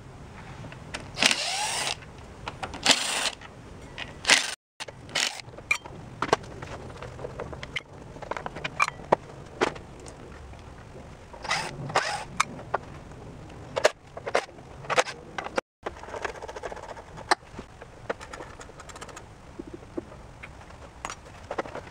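Hand work taking the shroud off a Briggs & Stratton V-twin lawn tractor engine: scattered sharp clicks, metallic clinks and scrapes of screws, the fan screen and the housing coming off, with a few longer scraping bursts early on.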